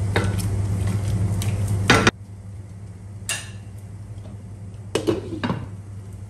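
Chicken sizzling in a pot while a wooden spatula stirs it. About two seconds in the spatula knocks sharply against the pot and the sizzling noise drops away. Around five seconds in, a glass lid clatters as it is set on the pot.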